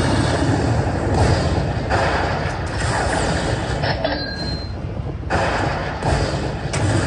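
Lightning Cash slot machine's win celebration sound effect, a loud noisy rumble as the win total counts up.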